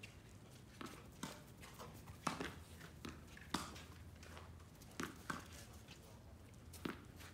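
Tennis ball struck by rackets and bouncing on a hard court during a rally: a string of sharp pops spaced roughly a second or more apart, the loudest a little over two seconds in and about three and a half seconds in.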